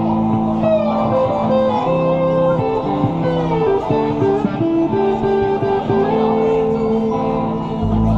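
Live rock band playing an instrumental passage, with an electric guitar lead line of bending notes over sustained keyboard chords and bass.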